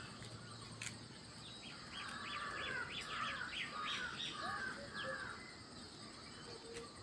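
Birds calling: a run of about half a dozen short arching calls from about two seconds in to about five seconds in.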